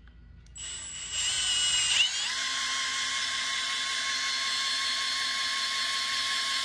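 Power drill spinning the oil pump of a Ford 408 Cleveland stroker engine through a priming tool, to prime its oil system. It starts about half a second in and speeds up, shifts pitch about two seconds in as the pump takes up the load, then runs steadily while oil pressure builds toward about 75 psi.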